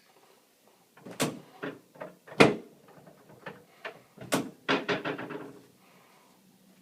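A series of sharp wooden-and-metal knocks and clacks from a chiropractic adjusting table being worked, about a dozen over four seconds, the loudest about two and a half seconds in and a quick run of them near the five-second mark.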